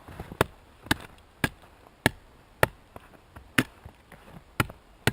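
An axe chopping into a tree trunk with short, sharp blows at a steady pace of about two a second, about ten strikes, a few of them lighter. The axe is cutting a small notch into wood that is dry inside, to hold tinder.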